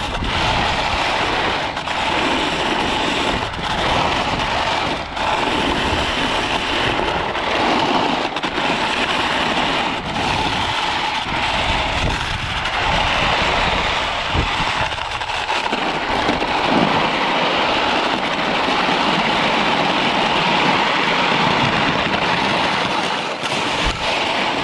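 Short skiblades sliding and carving down hard, groomed snow: a steady scraping hiss from the edges on the firm surface, with wind buffeting the microphone.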